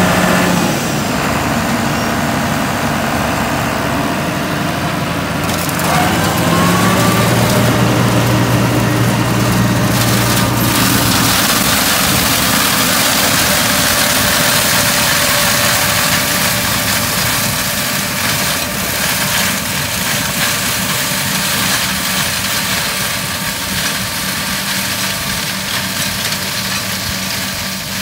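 Seppi M. WBS flail mulcher working, driven by its tractor's engine: a steady engine drone with a rushing, shredding noise over it. About six seconds in the engine note rises, and from about ten seconds the rushing noise grows louder.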